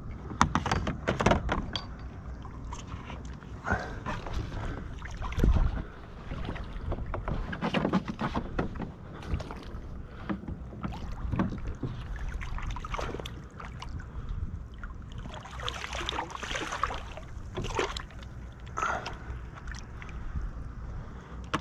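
Handling sounds at a plastic fishing kayak: irregular knocks and clatter of gear against the hull, with short splashes of water as a redfish held on a lip-grip is worked in the water and released. A heavy thump about five seconds in is the loudest.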